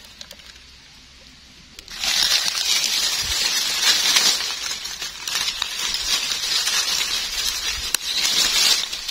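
Dry leaf litter rustling and crackling as a gloved hand brushes the leaves aside, starting suddenly about two seconds in and going on in uneven swells.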